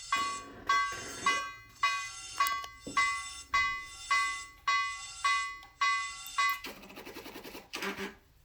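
Alarm-monitoring system's alert sounding a bell-like tone over and over, a bit under twice a second, each strike ringing and fading. It stops about two-thirds of the way in and a short buzzing rattle follows.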